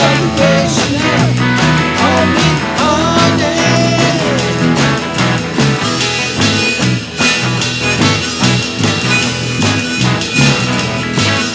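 Harmonica solo in a rock band's instrumental break, played on a neck-rack harmonica with bent notes near the start, over strummed guitars and a steady drum beat.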